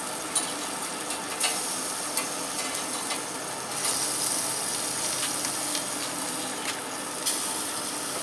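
Light metal clicks and knocks as a temperature probe is pulled from a cooked chicken and the pellet grill's wire rack is handled, over the steady hiss of the hot pellet grill.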